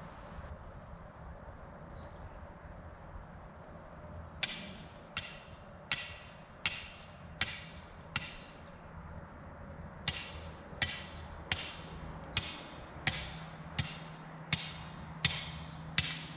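Hammer strikes driving a fence stake, each blow sharp with a short ring, in a steady rhythm of about three blows every two seconds. They begin a few seconds in, pause for about two seconds midway, then carry on.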